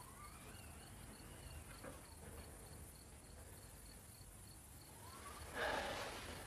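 Crickets chirping faintly in a steady series of short chirps, about three a second. Near the end there is a brief, louder rush of noise.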